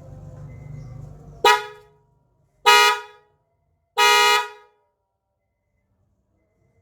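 Bosch H3F dual-tone car horns honked three times: two short toots and a longer third blast, over a low hum that fades out after the first toot.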